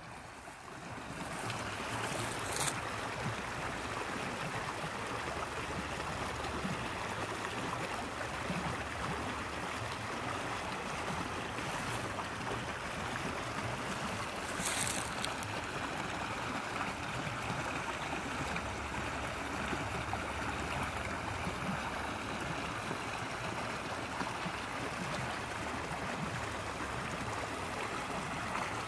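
Beaver-dam runoff running as a shallow creek over rocks, a steady rush and babble of water. A few brief clicks stand out, near three seconds and again near fifteen.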